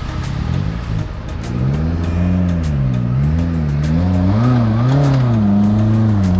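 Off-road 4x4's engine revving up and down repeatedly, its pitch rising and falling about once a second, as the vehicle is driven over an obstacle. It gets louder about one and a half seconds in.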